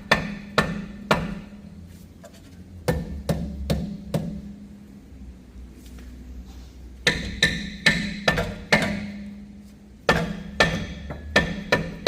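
Hammer blows on a BMW X5's rear brake rotor, coming in bursts of several strikes with short pauses between, each blow leaving the metal disc ringing. The rotor is stuck because the parking brake was still applied.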